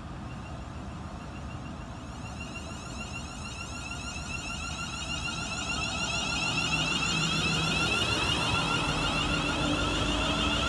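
Class 350 Desiro electric multiple unit accelerating toward and past, its traction motors giving a pulsing, warbling whine that grows louder from a few seconds in as the train nears.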